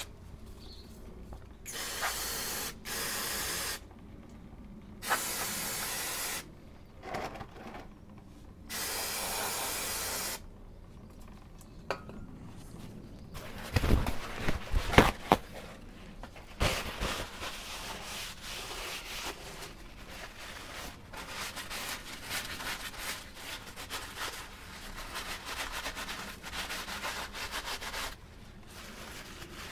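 Aerosol brake cleaner sprayed in four hissing bursts onto a drum brake backplate, then a few sharp knocks around the middle. After that, a cloth rubs and scrubs the backplate rapidly, wiping off the loosened grime.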